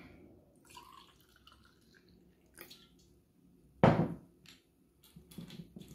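Sparkling white Lambrini poured from a bottle into a glass flute, splashing and fizzing faintly. A single sharp knock comes about four seconds in.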